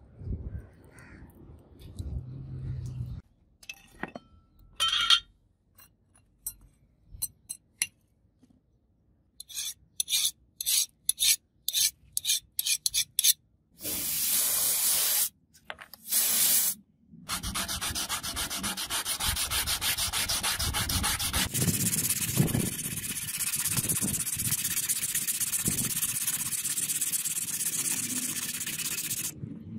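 Abrasive paper rubbing on the steel blade of a hand-made karambit, cleaning off the dark scale left by tempering. First come a few separate strokes with short gaps, then, from about halfway, a long run of fast, continuous rubbing.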